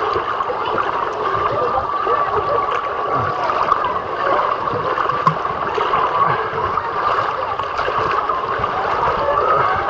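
Steady rush and gurgle of splashing water at a swimming pool, with a jumble of distant voices blended in.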